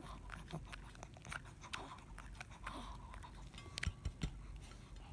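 Small dog licking a ceramic plate clean of sauce: a quick, irregular run of soft wet licking clicks, with a few sharper clicks against the plate near the end.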